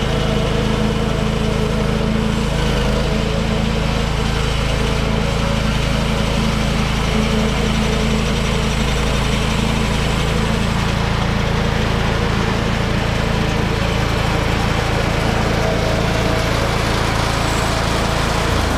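A Woodland Mills HM126 portable bandsaw mill's 14 HP Kohler engine running steadily at cutting speed while its band blade saws lengthwise through a log.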